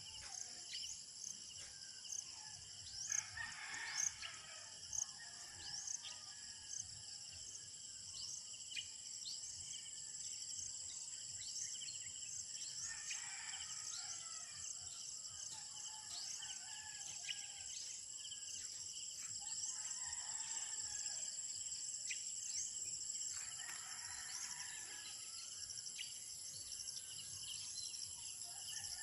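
Roosters crowing four times, each crow drawn out over a second or two. Underneath runs a steady high insect drone, and a bird repeats short falling whistles about once a second.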